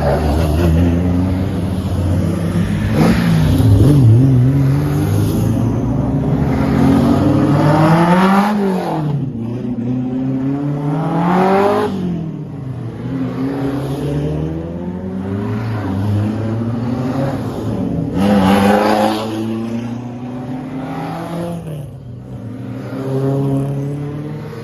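Alfa Romeo racing car engines revving. The pitch climbs and drops back again and again, with the biggest rises about eight, twelve, eighteen and twenty-one seconds in.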